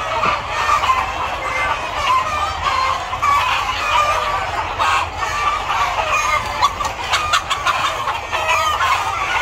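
A large flock of hens and roosters in a poultry house, clucking and calling over one another. A few sharp clicks come about halfway through and again a little later.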